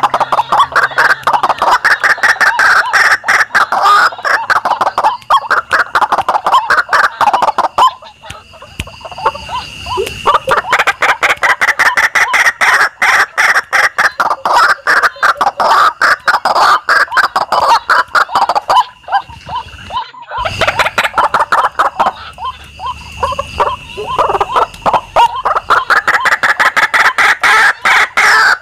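White-breasted waterhen calls: harsh, rapid croaking repeated in long loud bouts, easing off briefly about eight seconds in and again around twenty seconds in.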